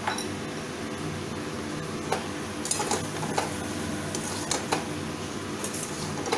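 Steel spatula stirring potato and pointed gourd pieces in a metal kadhai, with scattered clinks and scrapes of the spatula against the pan over a steady low hum.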